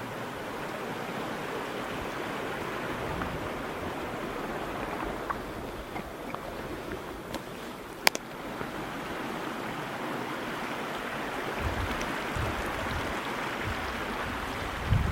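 Creek running high with runoff: a steady rush of flowing water. A single sharp click comes about halfway through, and a few low thuds near the end.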